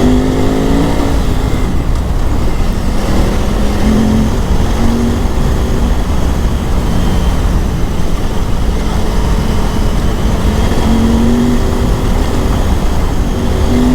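KTM 950 Adventure S's LC8 V-twin engine running under load on a ride, its pitch rising several times as the throttle is opened, over a constant heavy rush of riding noise.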